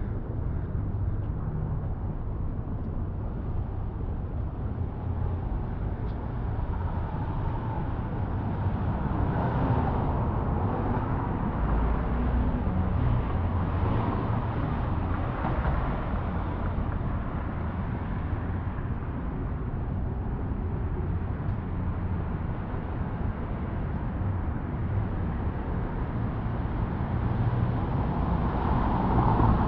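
City street traffic: cars passing on a busy street under a steady low rumble, swelling louder from about ten to sixteen seconds in and again near the end as vehicles go by.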